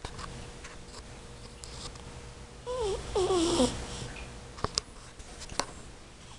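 Persian cat snoring: one wheezy, wavering snore about three seconds in, lasting about a second and falling in pitch. A couple of small sharp clicks follow.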